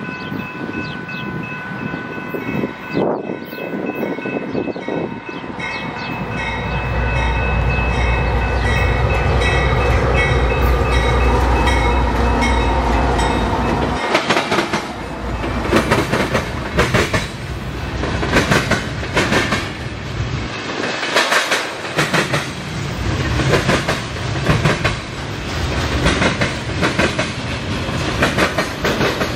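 Freight train passing close by. A crossing bell rings over the approach, then the Union Pacific diesel locomotives go by with a deep, loud engine rumble. About halfway through, the freight cars follow, rolling past with a steady run of wheel clicks over the rail joints.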